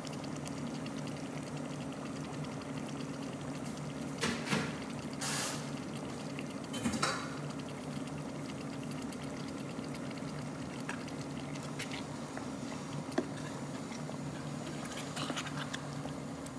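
Chicken korma gravy simmering and bubbling in an uncovered pot, over a steady low hum. A few short knocks of cookware come about four to seven seconds in, and a spoon stirs the pot near the end.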